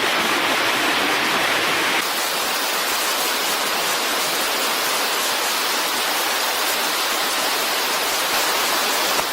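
Steady, loud rush of water, with no break in it, from the flooding rainstorm. About two seconds in it changes abruptly to a slightly duller rush.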